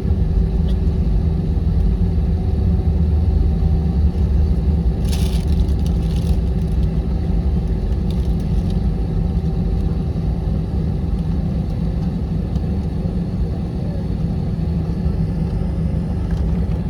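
Airliner cabin noise while taxiing after landing: a steady low rumble from the engines and air system with a faint steady hum, and a short burst of hiss about five seconds in.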